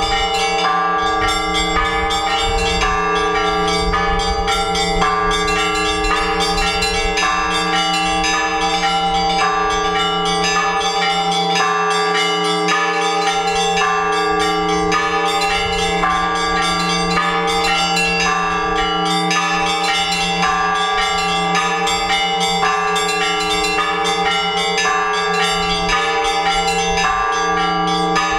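Russian Orthodox church bells ringing together in a full peal. Small bells are struck in a rapid, repeating rhythmic pattern over the deep, sustained hum of the larger bells.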